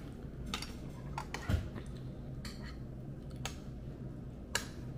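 Light clicks and clinks of eating at a table, about six in five seconds, over a steady low hum.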